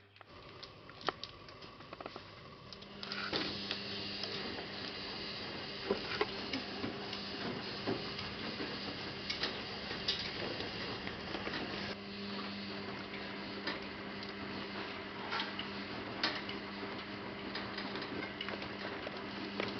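Kittens play-fighting on fleece bedding in a wire pen: scattered light scratches and taps of paws and claws, over a steady mechanical whirr with a low hum that comes in about three seconds in.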